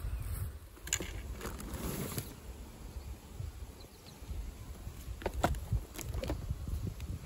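Plastic packaging around a toy truck set rustling and crinkling as it is handled and lifted out of a cardboard box, with scattered light taps and clicks, in two spells about a second in and again after five seconds, over a low rumble.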